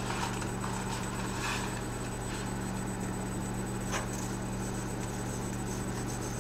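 Steady low hum and hiss of a stovetop with pans cooking, with faint rattles of dry spaghetti being handled and dropped into a pot of hot water, about one and a half and four seconds in.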